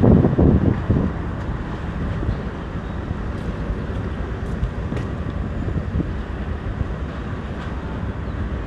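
Wind buffeting an action camera's microphone, with a strong gust in the first second, then a steady low rumble of wind noise.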